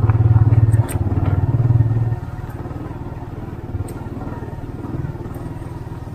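Small motorcycle engine running under throttle. About two seconds in it eases off to a quieter, steady run.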